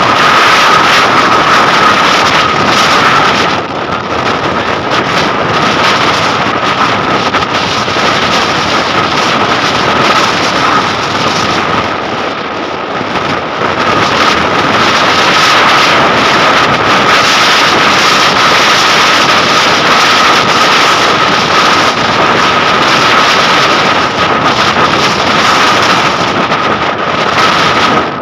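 Strong wind buffeting the microphone of a moving vehicle, with a steady high whine under the rushing noise. The rush eases briefly about four seconds in and again around twelve seconds.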